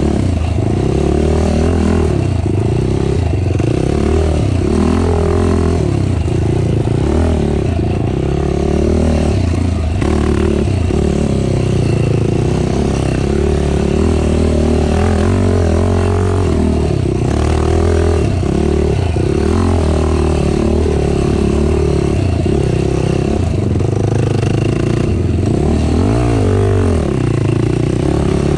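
Racing ATV engine running hard under constantly changing throttle, its pitch rising and falling every second or two.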